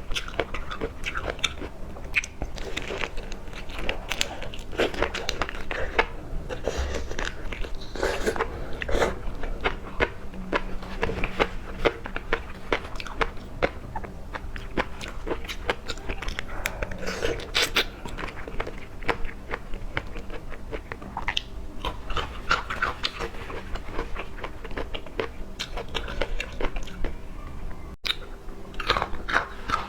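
A person chewing and biting seafood close to the microphone, with a continuous stream of wet clicks and crunches.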